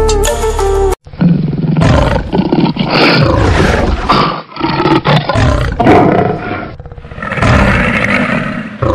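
Electronic backing music cuts off about a second in, followed by a series of loud, rough roars in uneven bursts.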